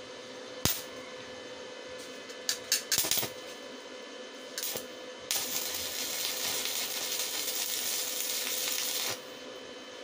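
Stick (SMAW) arc welding on a steel plate, the first test weld with a new portable inverter welder. A sharp click and a few crackles as the electrode is struck, then about four seconds of steady arc crackle and hiss that cuts off suddenly as the arc is broken.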